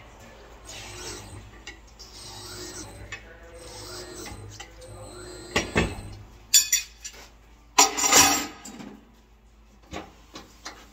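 Tire changer at work as a new tire's bead is levered onto a new rim with a tire bar: rubber rubbing and scraping over the rim in repeated strokes, then sharp knocks, and a loud short rush of noise about eight seconds in.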